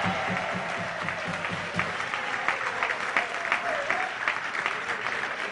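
Audience applauding at the end of a jazz set, with the band's music still sounding for the first couple of seconds.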